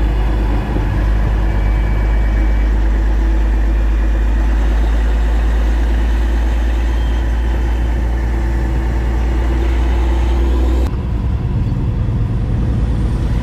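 Semi truck's diesel engine idling steadily with a deep rumble. About eleven seconds in it cuts to the rougher road and engine noise of the truck driving on the highway.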